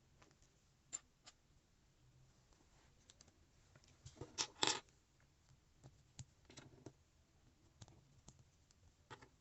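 Plastic Lego Technic pieces clicking as they are handled and fitted together: scattered light clicks, with a louder cluster about four to five seconds in.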